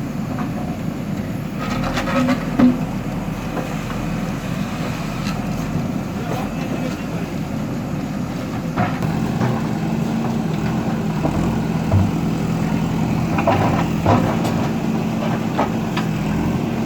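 Diesel engine of a heavy earth-moving machine running steadily under load, with scattered sharp clanks and knocks, the loudest a few seconds in.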